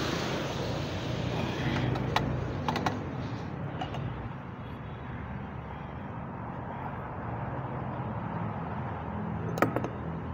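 Sharp metal clicks and clinks from pump fittings and hand tools being handled: one about two seconds in, a few near three seconds, and a close pair near the end. They sit over a steady low background hum.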